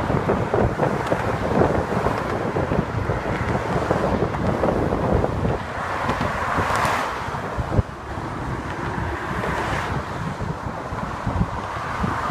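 Wind buffeting the microphone: a steady, loud rushing rumble with no speech, swelling briefly about seven seconds in.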